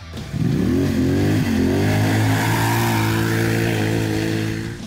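A 1000cc 4x4 ATV's engine revs up hard, its pitch climbing within about a second. It eases off briefly, then holds high revs steadily and fades out near the end.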